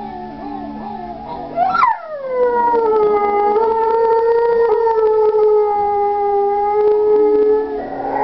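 A dog howling along to a film soundtrack: one long howl that swoops up and down at the start, then holds a steady, slowly falling note for about five seconds before breaking off near the end.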